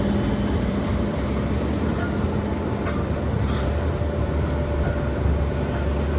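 Tractor-drawn sugar beet harvesting machinery running in the field: a steady low diesel rumble under a dense, even mechanical din.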